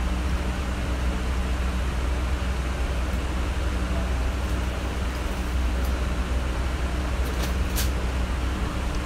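Steady low rumble and hiss of background noise, with a few faint clicks about seven to eight seconds in.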